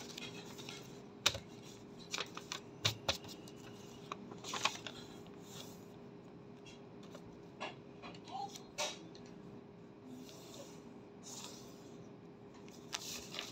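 A sheet of A4 paper being folded and creased by hand: irregular crinkles and sharp crackling clicks scattered through, over a faint steady hum.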